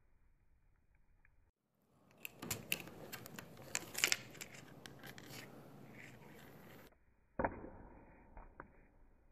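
A cat's paw and claws batting and dragging a flat plastic toy across a wooden floor under a door. The sound is a run of sharp clicks and scratches, loudest around the middle, with one sharp knock about seven and a half seconds in.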